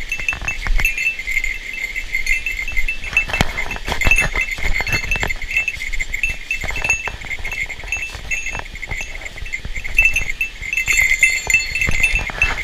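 A steady chorus of short, high, repeated chirping calls from small animals, with scattered clicks and knocks.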